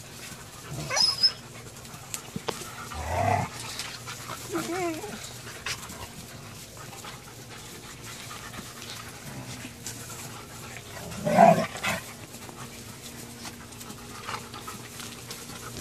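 Tamaskan dog and wolfdog puppies panting, with short wavering whines and squeals, plus a brief louder vocal outburst about eleven seconds in.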